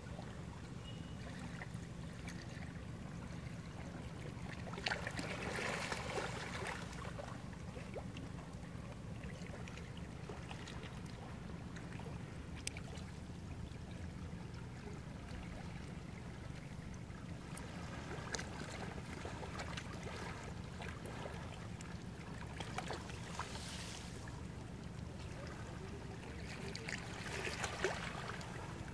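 Sea waves washing on the shore over a steady low hum, the wash swelling up once about five seconds in and twice near the end.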